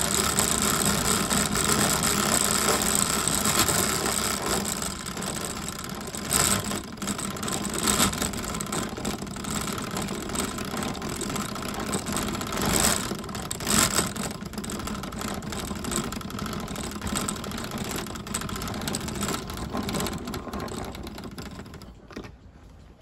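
Lego model in-line four-cylinder engine being turned by a hand-crank drill: its plastic parts clatter and rattle steadily as the orange rim knocks against a plate, with a few louder knocks along the way. The rattle dies away and stops near the end.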